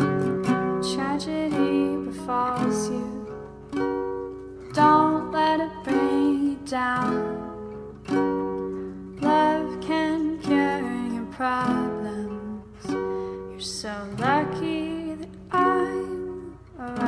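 Background pop song in an instrumental stretch, led by plucked acoustic strings playing a chord progression.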